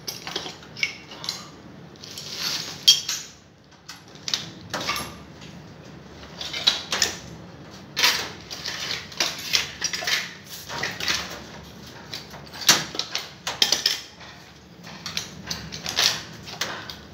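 Irregular metallic clinks and scrapes of hand tools and screws against the stove's sheet-metal body and wire mesh, as the mesh is screwed onto the stove.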